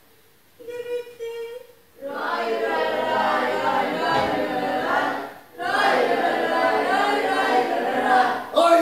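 A single voice holds a note, then from about two seconds in a group of voices sings together without accompaniment, breaking off briefly midway before going on.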